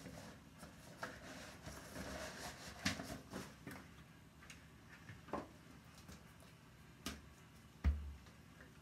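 Handling noises from a fabric wet bag and a folded plastic travel potty being taken out of it: scattered light clicks and rustles, with a louder thump near the end.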